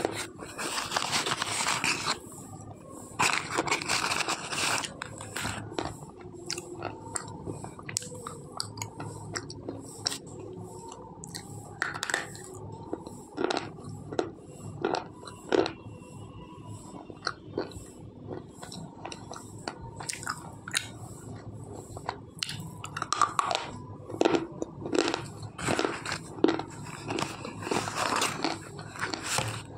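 A slate pencil being bitten and chewed, with dry, crisp crunches. The crunching is dense in the first few seconds and again near the end, with scattered single crunches between.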